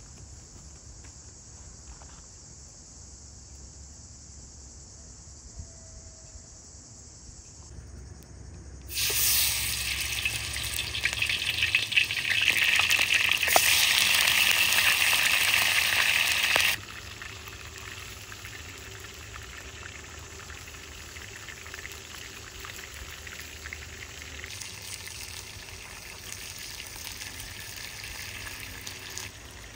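Food frying in hot oil, sizzling steadily. The sizzle is loud from about nine seconds in until a sudden drop near seventeen seconds, then continues at a lower level.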